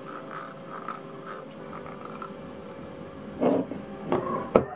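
Water taps being handled: light rubbing and scraping, then a few sharp clicks and knocks in the second half.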